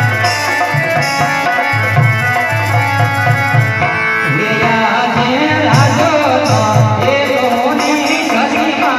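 Live Indian folk music played through a PA system: a steady hand-drum beat under held instrument tones. About halfway through, a man's voice begins singing a wavering, ornamented melody over it.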